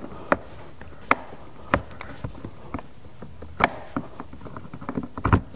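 Plastic retaining clips in a BMW 4 Series door being pried and popped out with a metal panel removal tool: a handful of sharp clicks and taps at irregular intervals.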